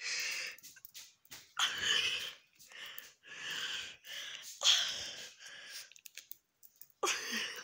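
Chihuahua huffing and snorting in a string of short breathy bursts, each about half a second long, while it bites and tugs at a paper candy wrapper.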